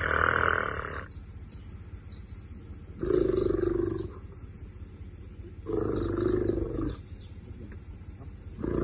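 Young African elephant calf calling four times, about every three seconds, each call lasting about a second. Short high bird chirps come between the calls.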